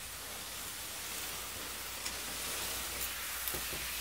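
Cardboard box with a cat inside being dragged on a string across a tile floor, a steady scraping hiss with a few light knocks.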